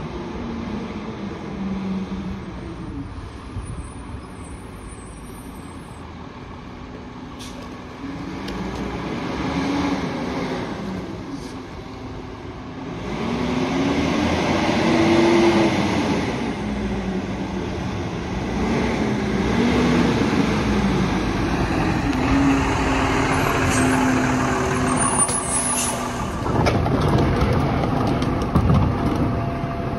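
Lodal EVO garbage truck's diesel engine revving up and falling back several times as the truck drives up and slows, with a hiss of air brakes near the end. It is followed by a run of knocks and clatter.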